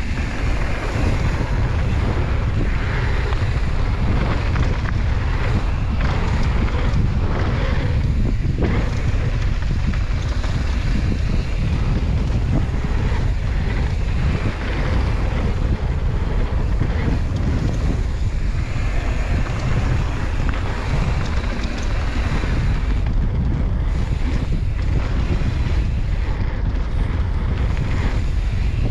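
Steady wind buffeting on the microphone of a camera riding down a mountain-bike flow trail, a heavy low rumble with a rushing hiss over it.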